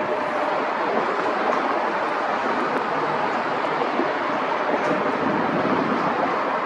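Steady rushing noise of jet airliner engines, holding at an even level throughout.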